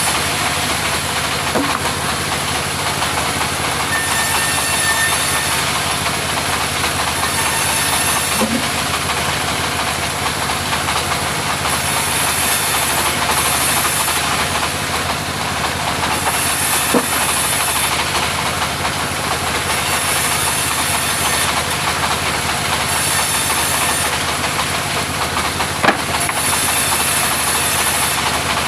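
Portable sawmill running steadily, its engine droning while the saw cuts timber, with a high hiss that comes and goes every few seconds and a few short knocks.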